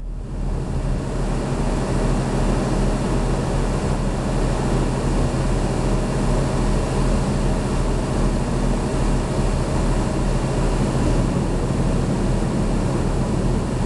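Heavy military vehicle's diesel engine idling with a steady low drone, heard close from on board the vehicle.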